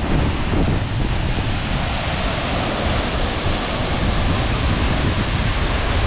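Steady rush of a tall free-falling waterfall close by, its water crashing down continuously, with wind and spray buffeting the microphone.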